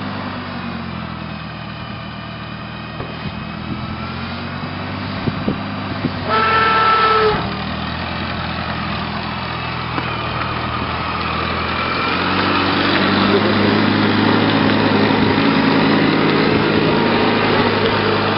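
Small old tractor's engine running steadily as it is driven. A horn honks once for about a second, about a third of the way in. The engine gets louder about two-thirds of the way in.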